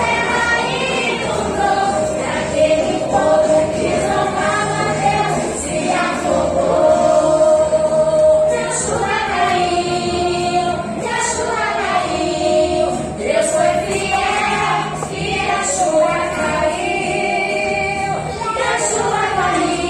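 Music with a group of voices singing together, in the style of gospel or worship song.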